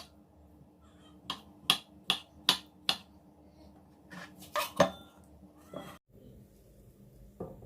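Kitchen knife chopping on a cutting board: a run of sharp, evenly spaced knocks, about two or three a second, then a few more in a quick cluster. The chopping stops about six seconds in.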